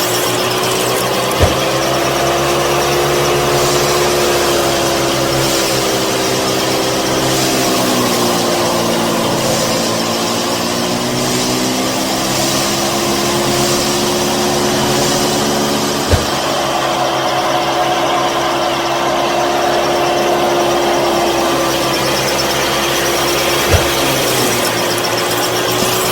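A small motor running steadily with a whine whose pitch sags and recovers slowly, as if under changing load. Three sharp clicks cut through it, about a second and a half in, near the middle and near the end.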